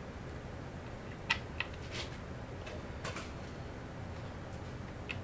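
Light metallic clicks and taps of small bolts being picked off a metal workbench and set into an outboard engine: about four in the first three seconds and another near the end, over a low steady hum.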